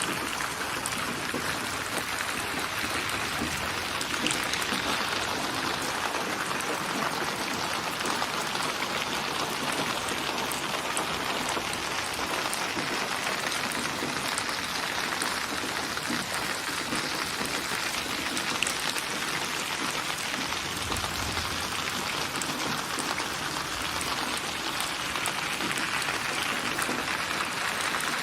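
Steady rain falling, an even hiss of many drops with small ticks of individual drops landing.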